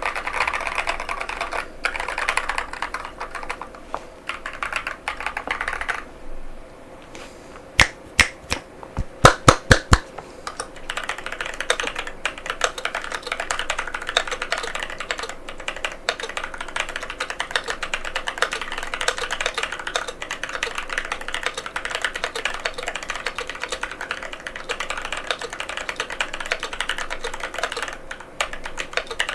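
Fast typing on a NovelKeys NK87 aluminum mechanical keyboard with Durock White Lotus tactile switches, a dense run of key clacks. About a third of the way in the typing stops for a few seconds, broken by a handful of sharp, much louder clicks, then resumes at the same pace.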